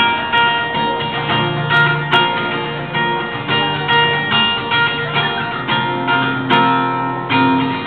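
Acoustic guitar strumming a run of chords.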